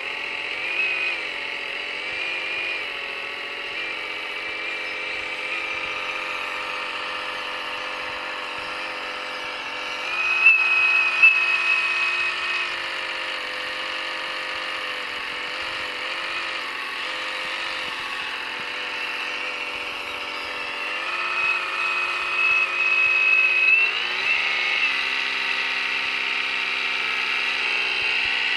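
Small electric motors of a radio-controlled model skid-steer loader whining as it drives and works its bucket in dirt. The whine shifts in pitch and grows louder in two stretches, about a third of the way in and again around three-quarters of the way through.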